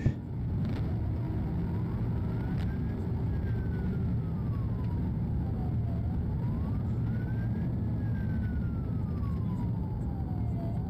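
Police cruiser siren on a slow wail, rising and falling about every six seconds, heard from inside the pursuing car over steady engine and road rumble.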